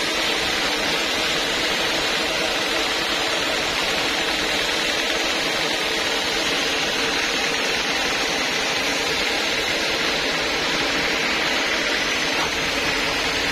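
Homemade band sawmill running, a steady, unbroken hissing whine that does not rise or fall.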